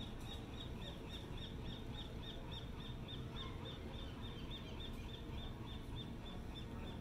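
A small animal chirping: short high chirps repeated evenly about four times a second, over a steady low rumble.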